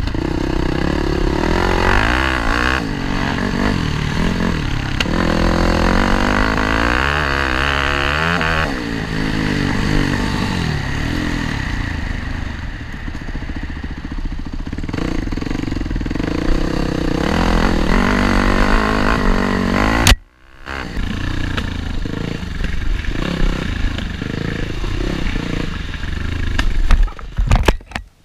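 Dirt bike engine heard from the rider's helmet, revving up and down through the gears as it rides over rough ground. The sound cuts off for a moment about twenty seconds in, and near the end there are loud clattering knocks as the bike goes down on slick roots.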